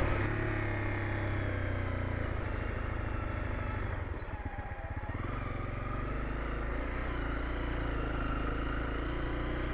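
Honda CRF250L single-cylinder four-stroke engine running as the motorcycle rides slowly on a sandy track. The engine eases off briefly about four seconds in, then runs steadily again.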